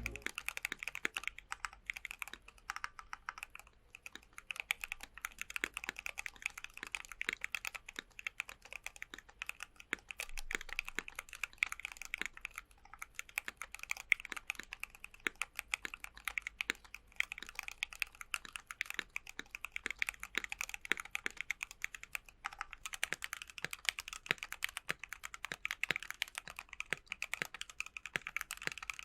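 Continuous fast typing on a Keychron Q1 aluminium custom mechanical keyboard with Gateron Phantom Red linear switches and PBT keycaps: a steady run of key clacks that gets denser near the end.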